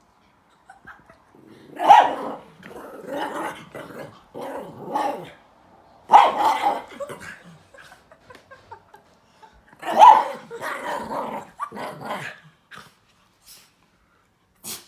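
Small chihuahua-terrier mix dog barking and growling in play at a stuffed toy, in three bouts: each opens with a sharp bark, about two, six and ten seconds in, followed by a string of growly barks.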